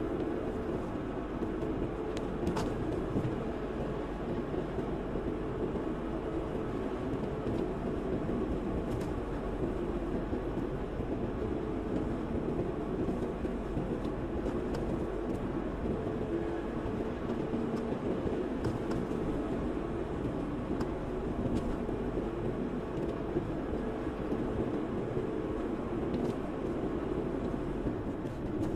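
A car driving at a steady speed: continuous engine and tyre road noise with a low steady hum.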